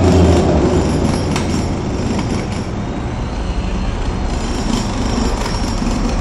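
Busy city street traffic. A heavy vehicle's low engine drone fades away in the first moments, then steady rumbling traffic noise follows, with faint high squeals.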